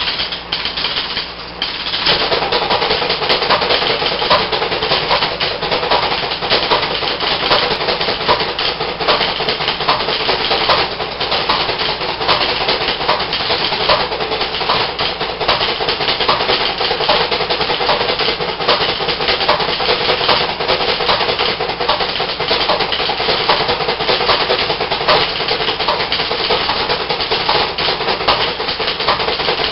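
Electromechanical bingo pinball machine's relays and stepping units clattering rapidly and continuously, with a faint steady hum under them. The clatter grows louder about two seconds in and keeps up without a break.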